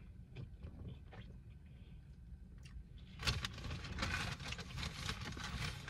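Eating sounds at a mukbang microphone: a few soft clicks, then dense crackling and rustling from about three seconds in, over a steady low hum.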